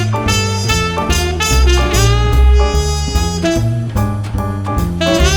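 Upbeat swing-jazz background music with saxophone and brass over a steady beat.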